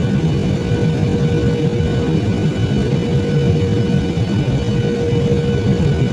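Airliner's jet engines during the landing approach: a steady, loud rumble with a steady hum on top.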